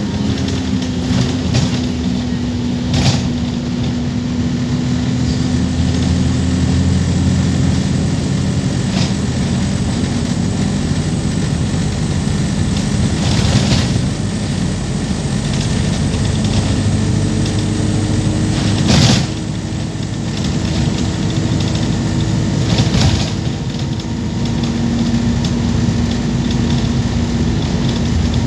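Wright StreetLite Max micro-hybrid single-deck bus under way, heard from inside: steady engine and driveline drone whose tones drift in pitch. A few knocks and rattles come through, the loudest about two-thirds of the way in, after which the drone drops briefly. The gearbox is one that the uploader hears as dodgy and in urgent need of replacement.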